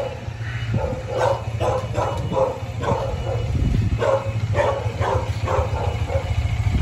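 A dog barking about ten times in quick runs, with a short pause about halfway, over the low, steady running of a Bajaj Dominar motorcycle engine in first gear.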